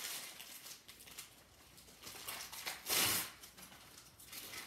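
Rustling and light taps from handling a paper-covered packaging tube, with one louder, brief rush of rustling noise about three seconds in.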